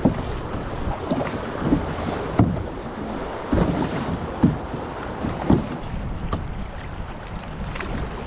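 Water splashing and sloshing around a kayak, in short strokes every second or so, with wind on the microphone.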